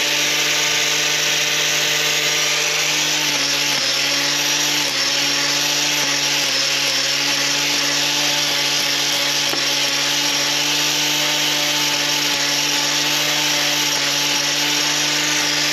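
Handheld angle grinder with a hoof-trimming disc grinding down a cow's claw, the motor running steadily at full speed with its pitch dipping slightly now and then as the disc bites into the horn.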